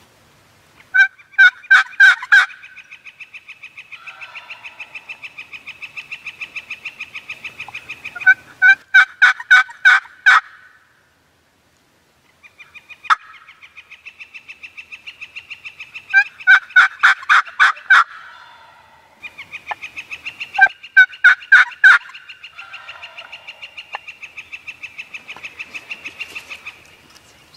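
Turkey calls: four loud bursts of five or six sharp, rapid notes each, with a fainter fast, even trill running between them.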